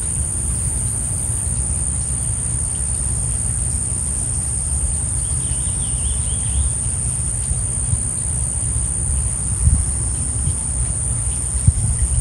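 Insects droning in one steady high-pitched note, over a low rumble, with a short warbling bird call about six seconds in.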